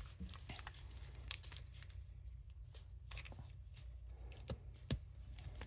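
Pokémon trading cards and booster pack wrappers being handled: scattered soft clicks, rustles and crinkles, with a few sharper ticks over a low steady hum.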